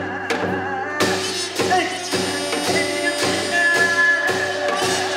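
Korean traditional ritual music: a sung or played melody over steady percussion strokes, about three every two seconds. A brighter high layer joins about a second in.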